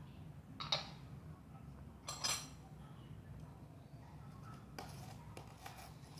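Kitchenware clinking during instant-noodle cooking: a sharp clink about a second in, a double clink about two seconds in, and several lighter knocks in the last second and a half, over a low steady hum.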